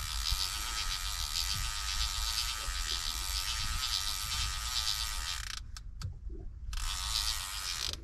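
Fishing reel's drag clicking rapidly as a hooked fish pulls line off against it: one long run of about five and a half seconds, a pause of about a second, then a shorter run near the end.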